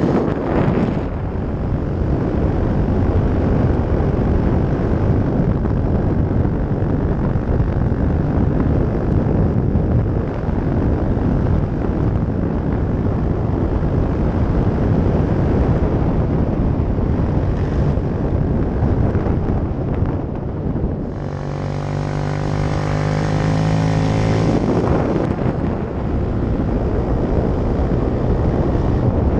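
Yamaha YS125 motorcycle with a Leovince aftermarket exhaust, its single-cylinder four-stroke engine running at steady revs while climbing, heavily mixed with wind rushing over the microphone. For a few seconds about three quarters of the way in, the engine's even note comes through clearly over the wind.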